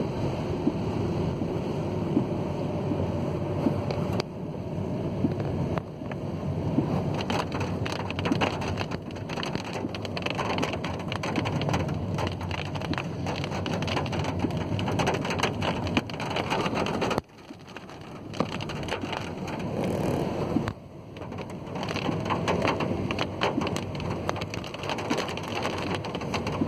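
Car driving in monsoon rain, heard from inside: rain hitting the car and tyres hissing on the wet road, a dense crackling noise that drops away sharply for a moment a few times.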